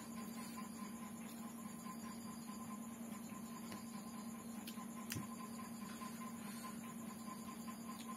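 Steady low electrical hum with a faint higher tone. A few small clicks about five seconds in come from fingers working rice on a plate.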